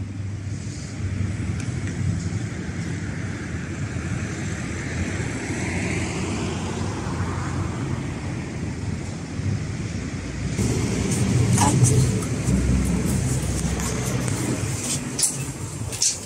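Outdoor street traffic: car engine and tyre noise, with one vehicle passing whose sound rises and falls over several seconds, and a louder low rumble about twelve seconds in. A few sharp clicks near the end.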